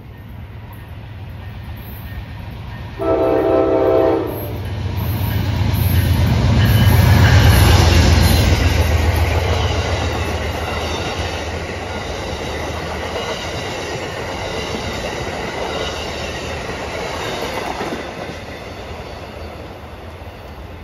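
Amtrak P42DC diesel locomotive sounding its horn once for about a second, about three seconds in, then passing through the station with its engine rumble loudest around seven seconds. The passenger cars follow with a long rush of wheel noise on the rails that fades near the end.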